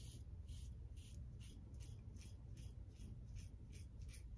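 Apollo Light double-edge safety razor with a Gillette Super Thin blade scraping through two days of stubble under lather, in faint, quick short strokes, about three or four a second.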